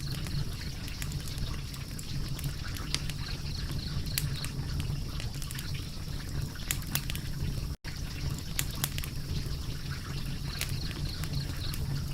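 Fire crackling: frequent sharp pops and snaps over a steady low rumble of the flames. The sound cuts out for an instant about eight seconds in.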